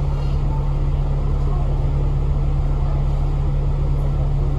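Citybus route 18X bus running along the road: steady engine and road noise with a constant low hum.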